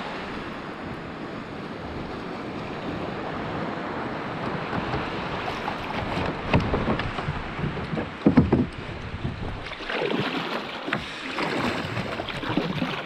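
Sea water sloshing and splashing around a kayak as it is paddled out, with wind noise on the microphone. A couple of louder splashes come past the middle.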